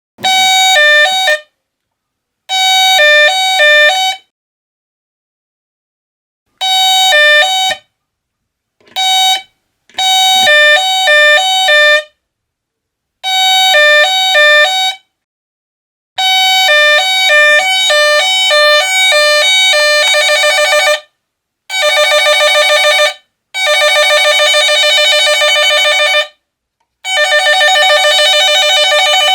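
Homemade electronic doorbell playing its chime tune in about ten short bursts, each cut off abruptly and started again, as the bell push is pressed repeatedly. From about twenty seconds in, a different, denser tune plays.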